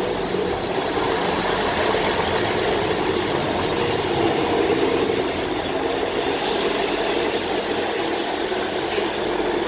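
Diesel multiple unit's underfloor engines running steadily as the train draws slowly into the platform, with a burst of hiss about six seconds in.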